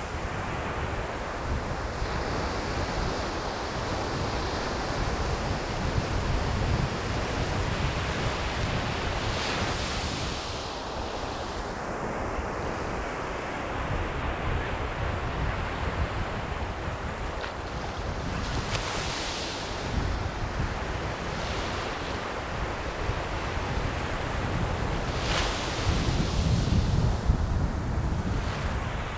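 Surf breaking and washing on a beach in strong wind, with gusts rumbling on the microphone. Three brighter surges of surf stand out, about ten, nineteen and twenty-five seconds in.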